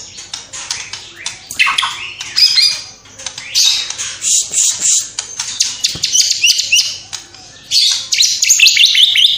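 White-rumped shama singing in loud bursts of fast, high, falling trills and sharp chirps, a song filled with mimicked calls of house sparrows, lovebirds and other songbirds, with short pauses between phrases.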